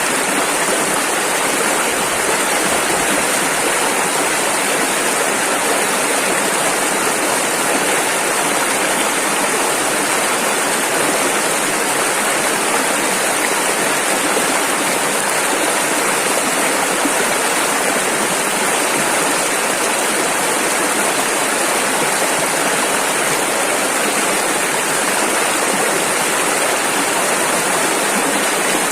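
Rushing river water, a steady dense roar of fast-flowing rapids.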